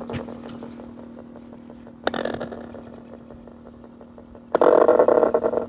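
Ghost box (spirit box) scanning through radio stations: a steady hum with short bursts of choppy static, one about two seconds in and a longer, louder one near the end.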